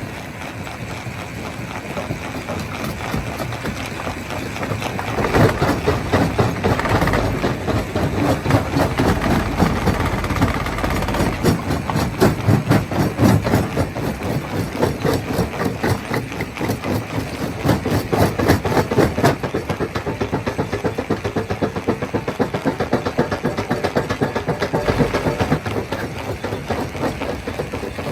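Stone crusher machine running, with a dense, rapid clatter of rock being crushed over a steady engine sound; it grows louder about five seconds in.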